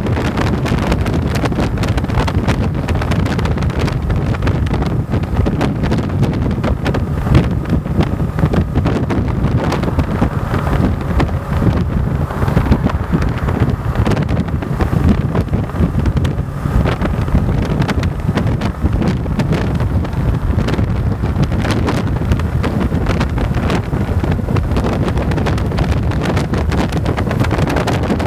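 Heavy wind buffeting on the microphone of a motorcycle cruising at motorway speed, with the bike's engine and road noise running steadily underneath.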